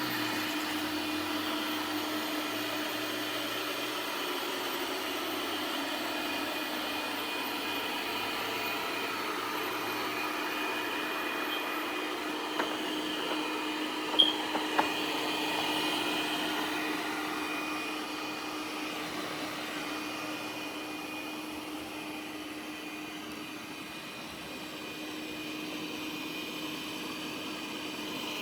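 Lefant M3 robot vacuum-mop running, a steady motor hum with a constant whine over it. A few sharp clicks come about halfway through.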